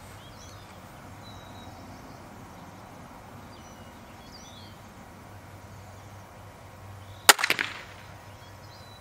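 Wicked Ridge NXT 400 crossbow firing a single shot: one sharp, loud crack about seven seconds in, with a brief trailing rattle. Before the shot, only a quiet outdoor background with a few faint bird chirps.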